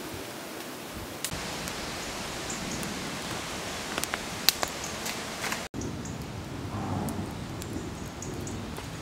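Wood fire burning in a split-log Swedish torch: a steady hiss with scattered sharp crackles and pops, the loudest about four and a half seconds in. The sound drops out for an instant just before six seconds in.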